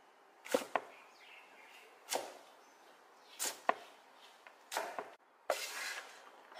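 Kitchen cleaver chopping long beans on a wooden cutting board: sharp chops at irregular intervals, some in quick pairs. Near the end comes a longer scraping rustle as the cut pieces are swept together on the board.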